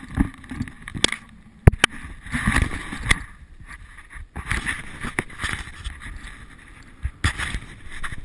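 Skis sliding and carving on groomed snow: an uneven rushing hiss that swells with each turn, with wind on the camera microphone and several sharp knocks.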